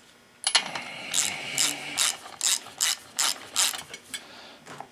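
Ratchet clicking in quick back-and-forth strokes, about ten of them at roughly two and a half a second, as a spark plug is run down into the Husqvarna 445 chainsaw's cylinder head.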